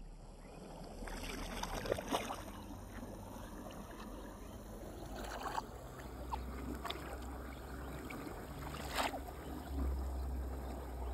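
Water sloshing and splashing around a rubber-mesh landing net as a carp is netted in shallow water, with a few sharper splashes and a low rumble underneath.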